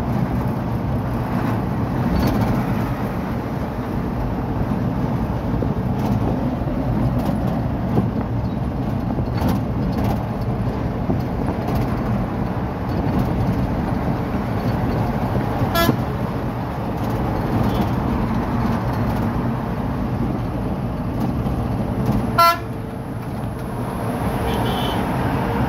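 Steady engine and road noise of a moving vehicle, heard from inside its cab on a highway. A vehicle horn toots briefly past the middle, and a louder short horn blast sounds near the end.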